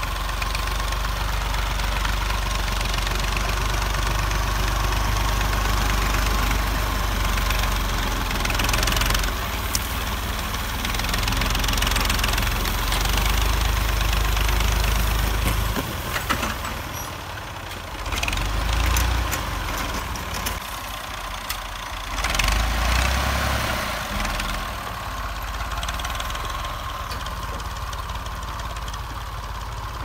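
Massey Ferguson 135 tractor engine running steadily under load while pulling a disc plough through the soil, with a few sharp clicks. The level shifts a couple of times in the second half.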